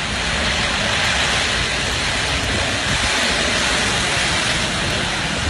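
Steady loud rushing noise of a large wildfire burning through trees and brush close by.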